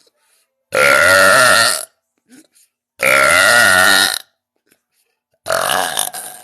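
A woman belching three times in a row, loud, long, pitched burps of about a second each, a second or so apart.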